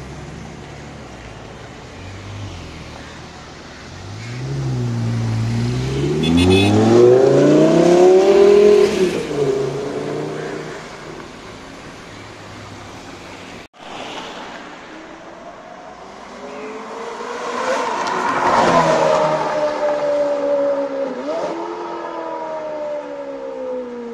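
Two high-performance car engines accelerating hard, one after the other, over street traffic noise. The first climbs steadily in pitch to its loudest and then eases off; after a brief cut in the sound, the second builds up and then falls steadily in pitch, with a short rev blip near the end.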